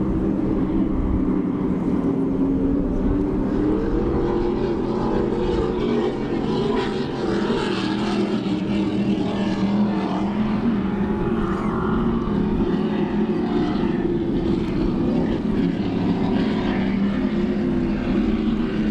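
Racing powerboat engines droning steadily across the water, a low hum of several tones whose pitch wavers slightly.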